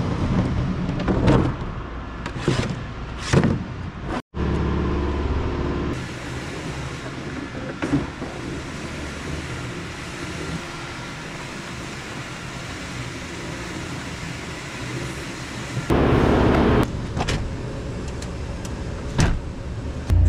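A few sharp knocks, then a steady low hum for about two seconds. After that, a manual push sweeper's brushes and wheels run over a concrete floor as a steady even noise. Near the end comes a louder burst of noise under a second long, then a few clicks.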